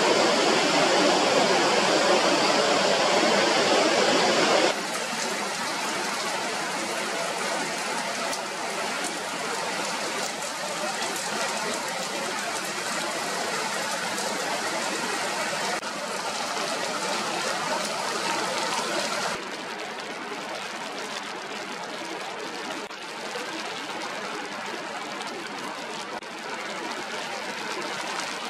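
Whitewater river rapids rushing, a loud steady roar of water. A little under five seconds in it drops suddenly to a quieter, steady rushing hiss, which steps down twice more later on.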